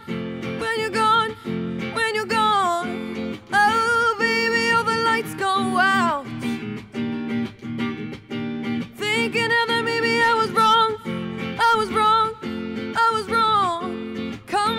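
A woman singing a pop ballad live, accompanied by an electric guitar playing chords, with a short break in the singing about halfway through.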